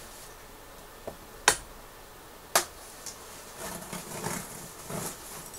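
A cardboard box being cut and opened: a few sharp clicks, the two loudest about a second and a half and two and a half seconds in, then a stretch of scraping and rustling of cardboard and packing tape.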